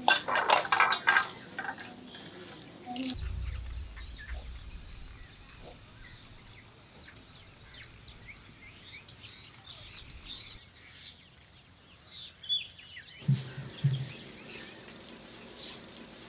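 A hand squeezes and stirs rice in water in a steel bowl for the first three seconds, with wet squelching and splashing. After that, birds chirp in a quiet background, and a few soft knocks come near the end.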